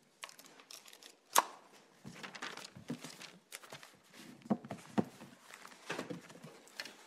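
Irregular knocks, clicks and rustling of people moving and handling things in a small hall, with sharp knocks about one and a half seconds in and again around five seconds.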